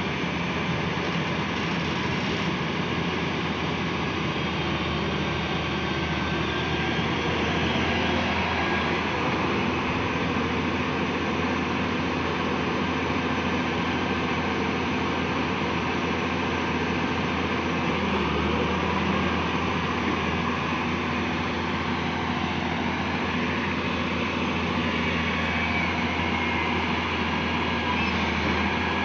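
Hyundai wheeled excavator's diesel engine running steadily under working load as it digs.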